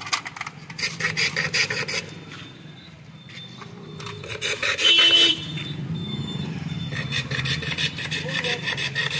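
Block of ice scraped back and forth over the blade of a wooden hand ice-shaving stand, shaving ice for golas in quick rasping strokes: a fast run at the start and another from about seven seconds in. A brief loud sound stands out about five seconds in, over a low steady background hum.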